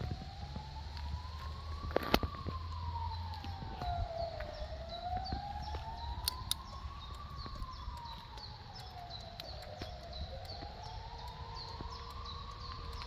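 A siren wailing, its pitch slowly rising and falling about three times.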